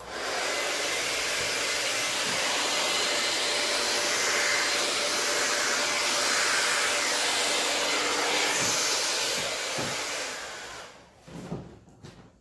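Revlon hand-held hair dryer blowing wet acrylic paint across a canvas. It switches on abruptly, runs steadily as a rushing blast of air, and winds down about ten and a half seconds in.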